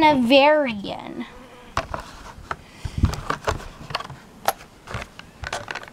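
A toy horse's cardboard-and-plastic blister pack being handled on a cloth-covered table: scattered light clicks and taps, with a soft low thump about three seconds in.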